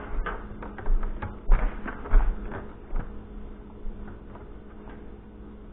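Hands kneading dough in a plastic bowl: a few irregular soft thumps and knocks of the dough and bowl, dying away after about three seconds, over a steady low hum.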